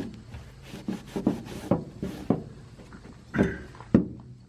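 A cloth wiping rust dissolver off sheet metal: a series of irregular rubbing strokes, with a couple of sharper, louder scuffs near the end.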